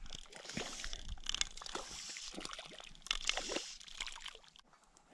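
Fly line and rod being handled after a cast, making an irregular rustling hiss with light clicks and ticks in uneven bursts that die away shortly before the end.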